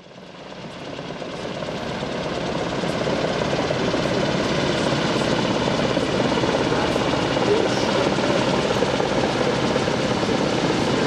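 Kaman K-MAX helicopter in flight, its twin intermeshing rotors and turbine engine making a steady, dense helicopter noise. The sound fades in over the first couple of seconds, then holds steady.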